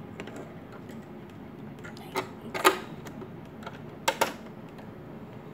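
Small sharp clicks and snaps as a wound bobbin is fitted into its bobbin case and the case is set into a Juki sewing machine: two clicks near the middle, the second the loudest, then a quick pair of clicks a little later.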